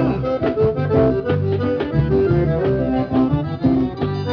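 Forró music played loud through a car sound system's speaker wall: an instrumental accordion passage over a steady bass beat.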